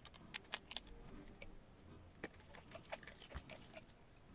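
Faint, irregular light clicks and taps of small hand tools and parts being handled: a hex driver, tiny beadlock screws and a threadlocker bottle while a steel beadlock wheel is fitted into an RC crawler tire.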